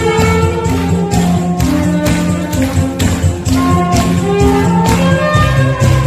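Saxophone playing a slow gospel-song melody in long held notes over a live band with drum kit and a steady beat, about two strokes a second, with congregation clapping along.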